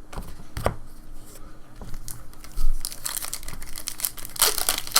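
Trading card pack wrapper being torn open and crinkled, after a few light clicks in the first seconds; the crinkling comes thick in the second half.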